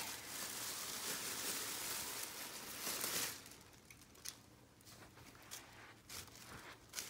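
Thin plastic shopping bag rustling and crinkling as hands rummage in it and pull out folded t-shirts. The rustling is steady for about three seconds, then drops to a few faint crinkles.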